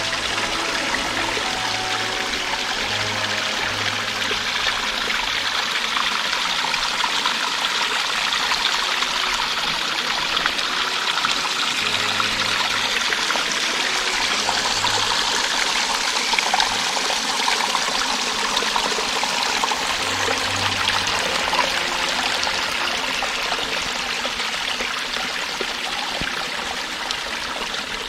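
Water from a small waterfall on a hill stream, splashing and running in a steady rush.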